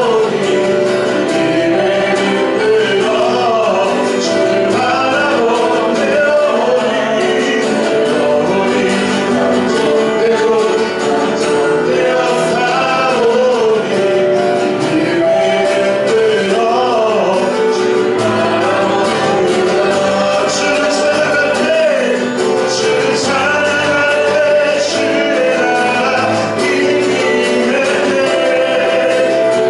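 Worship song performed by a church praise team: singing voices over steady instrumental accompaniment.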